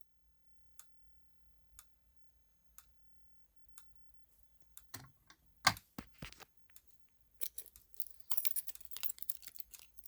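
Fire alarm pull station being handled and pulled: faint ticks about once a second, then a few sharp plastic clicks and, near the end, a busy run of clicking and clattering. No alarm tone sounds.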